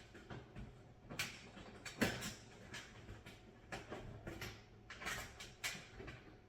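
Allen wrench tightening screws into the panels of a metal raised garden bed: a string of short, irregular metal clicks and clinks.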